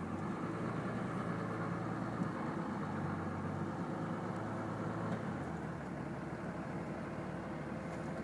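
Steady engine and road noise from inside a moving car's cabin, with a low hum underneath.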